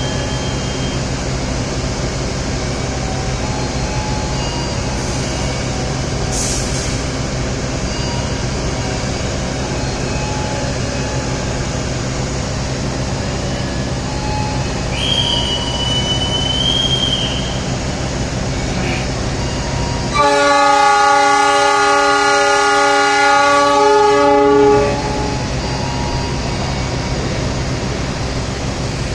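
A diesel passenger train stands at the platform with its locomotive idling in a steady low hum. About halfway through, a high whistle sounds for about two seconds. A few seconds later the locomotive's horn gives one long blast of about four and a half seconds, the loudest sound here.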